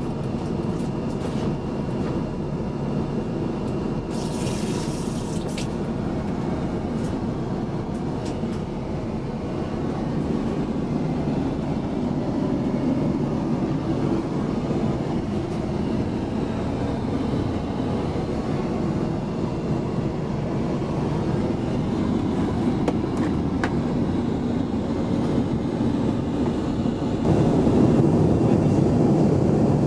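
Steady airliner cabin drone of an Airbus A350-900 in flight, heard from the lavatory. About four seconds in there is a brief hiss of water from the lavatory's touchless tap, lasting under two seconds. Near the end the drone steps up louder.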